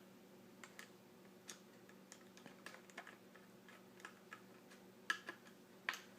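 Faint, irregular light clicks and taps from handling a Swingline three-hole punch and paper, with a couple of sharper clicks near the end, over a faint steady hum.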